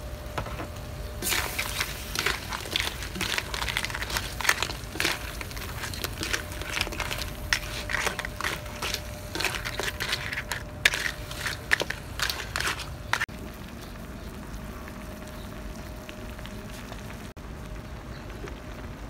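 A spatula scrapes and tosses mud crab pieces in a metal wok, the shells clattering against the pan in quick irregular clicks for about twelve seconds. Then the oyster-sauce mixture sizzles and bubbles steadily.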